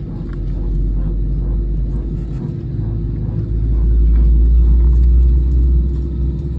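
Airliner cabin noise: a low, steady rumble from the engines and airframe with a constant hum over it, swelling louder about three seconds in and easing off near the end.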